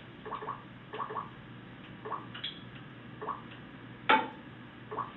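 Scattered faint short clicks at irregular intervals, with one louder knock about four seconds in, over steady room hiss.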